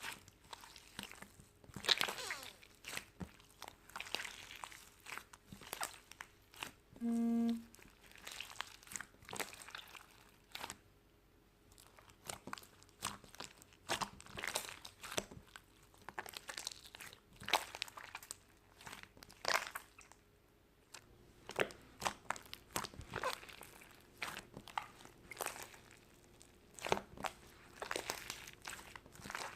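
Typing on keys: irregular runs of sharp clicks and taps with brief pauses. A short pitched tone sounds once, about seven seconds in.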